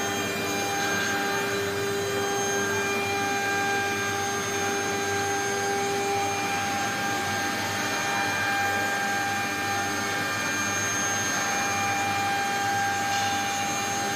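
Spindle of a 4-axis CNC engraving router running at steady speed, a constant whine with several fixed pitches, during a test run of a newly loaded job file. One of the lower pitches drops out about six seconds in.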